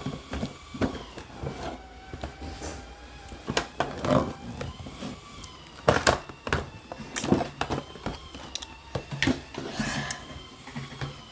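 Hands handling a toy's plastic packaging: a string of irregular clicks, crackles and crinkles. A faint wavering tone and a low hum run underneath.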